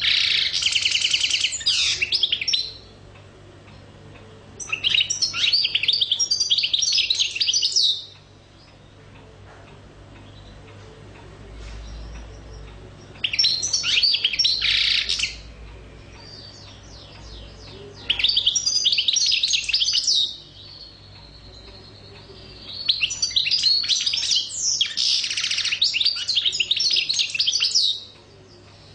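Caged European goldfinch singing: five bouts of rapid, high twittering song, each two to five seconds long, with short pauses between.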